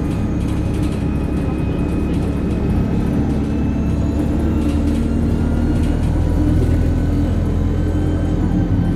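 Alexander Dennis Enviro200 bus engine running on the road: a steady low drone with a thin, high turbocharger whine over it that slowly rises in pitch.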